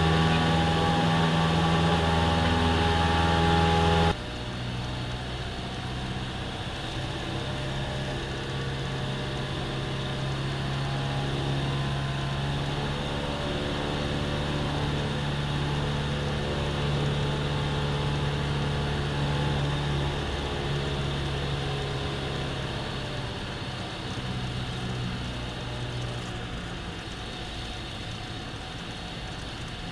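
Cessna 172M's four-cylinder Lycoming O-320 engine and propeller running at takeoff power, heard from inside the cockpit. About four seconds in, the sound drops abruptly and the engine note settles slightly lower, then it runs steadily on through the climb.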